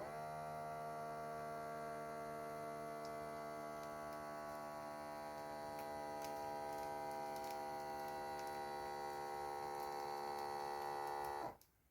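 Digital blood pressure monitor's small air pump running as it inflates the arm cuff, a steady hum that cuts off suddenly near the end when inflation stops.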